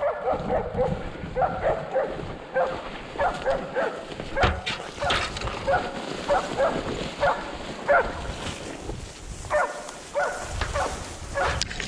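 Blood-tracking hound (chien de rouge) barking over and over, about two barks a second in quick runs, with a short break a little before the end.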